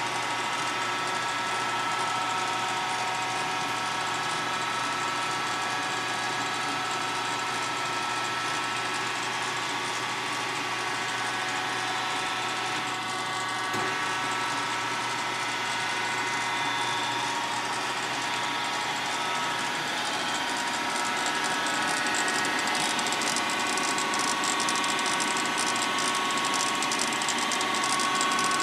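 Sharp 8x20 automatic cylindrical grinder running its traverse cycle: a steady machine whine made of several even tones over a hiss. It grows a little louder about two-thirds of the way through, with a single click around the middle.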